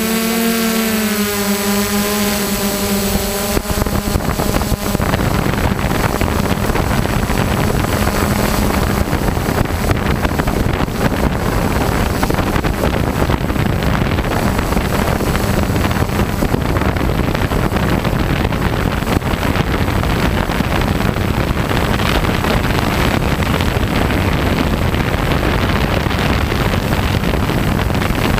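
Multirotor drone's E300 motors and propellers running in flight, heard through the camera it carries. At first there is a wavering motor whine; from about three and a half seconds in it is mostly buried under steady wind rushing over the microphone.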